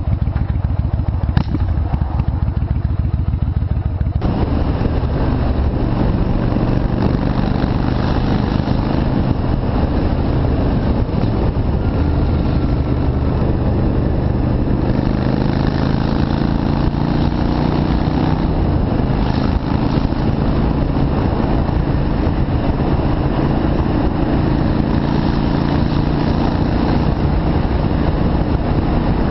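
Yamaha Virago V-twin motorcycle engine running on the move, its note rising and falling several times as the throttle opens and closes. A rushing noise comes in suddenly about four seconds in and stays under the engine.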